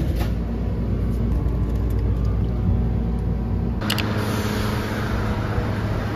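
Steady low rumble of background noise with a low hum. It changes abruptly after a click about four seconds in to a steady street-traffic background.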